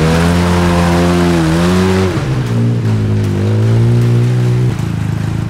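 6x6 mini truck's engine running, a sound likened to a "mobile fart machine". Its pitch rises briefly about two seconds in, then drops and settles lower, and drops again near the end. The crew puts the truck's reluctance to go down to puddle water soaking the belt drive so the belt slips.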